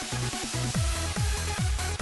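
Electronic dance music, a trance-style track with a kick drum about twice a second over bass and synth notes. The kick drum comes back in after a short break, under a second in.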